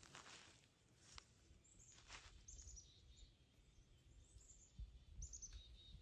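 Faint chirps of a small bird, four or so short calls, over low rustling.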